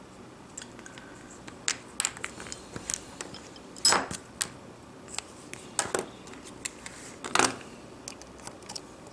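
Small hand tools clicking and clacking as they are picked up, set down and handled around an opened phone: a run of sharp light clicks, with three louder clacks in the middle.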